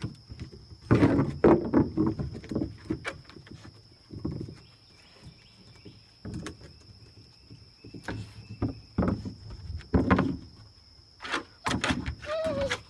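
German Shepherd puppy's paws scuffing and knocking on wooden deck boards as it bats and noses at a turtle's shell, in irregular knocks and scrapes with short quiet gaps.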